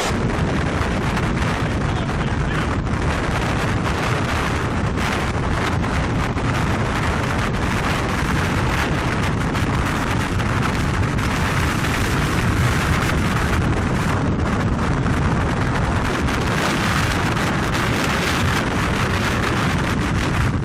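Strong wind blowing across the microphone: a loud, steady, rumbling rush that holds throughout.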